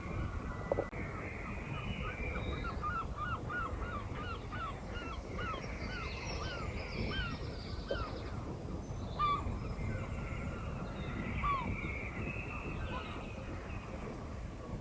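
Birds calling: a run of short repeated calls, about two a second for several seconds, then thinning out, over higher chirping birdsong. A low wind rumble runs underneath.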